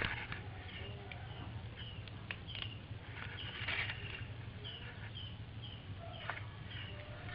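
Faint short high chirps repeating about twice a second, with scattered light ticks and rustles over a low steady hum.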